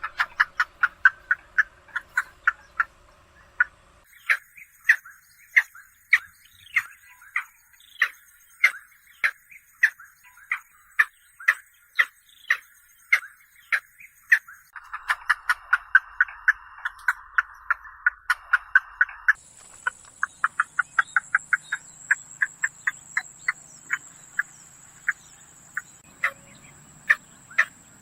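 Calls of a heron-family bird (a bittern or night heron): long runs of short, sharp repeated notes. The pace and background change abruptly about four, fifteen and nineteen seconds in, as separate field recordings follow one another.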